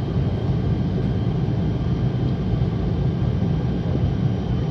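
Steady low drone inside the cabin of an ATR 72-600 turboprop airliner, its engines running before take-off.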